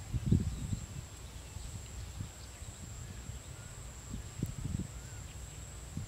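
Open-field ambience: low gusty rumbles of wind on the microphone, strongest in the first second and again a little past four seconds in, with faint bird chirps and a steady high-pitched whine.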